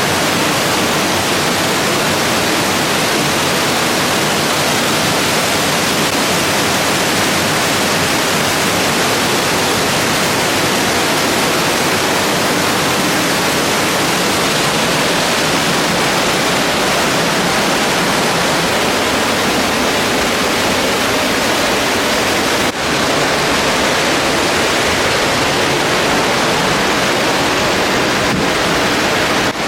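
Waterfall pouring close by: a loud, steady rush of falling water, with a brief dip about three-quarters of the way through.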